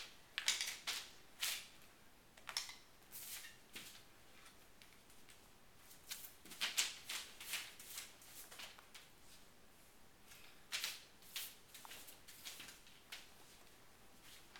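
Faint, scattered clicks and rustles of paint bottles and a large sheet of paper being handled, with a cluster a little after the middle.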